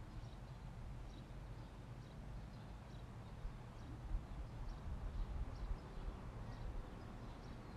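Quiet outdoor ambience: faint, scattered bird chirps over a low, steady rumble.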